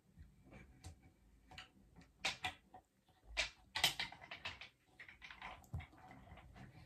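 Rustling and light knocks of things being handled close by, with a run of louder rustles and scrapes about two to four seconds in.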